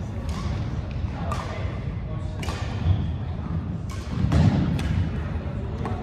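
A volleyball being played on a hardwood gym floor: a series of sharp thuds from the ball being hit and bouncing, echoing in the hall, the loudest about three seconds in and again past four seconds, over background voices.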